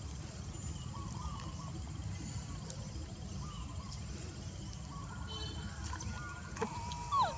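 A steady low rumble with scattered short animal calls, some chirping and one louder call near the end that slides down in pitch.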